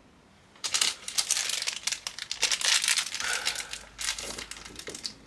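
Packaging crinkling and crackling as it is handled, starting about half a second in.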